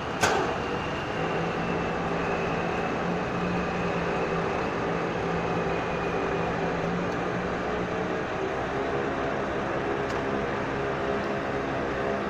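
Heavy diesel engines running steadily with a low drone, with one sharp knock just after the start.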